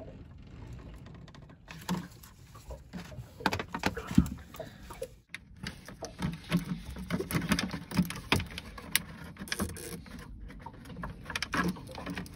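Gloved hands working at a marine diesel's primary fuel filter and its drain valve: irregular small clicks, taps and rubbing of metal, rubber hose and glove, with a brief hush about five seconds in.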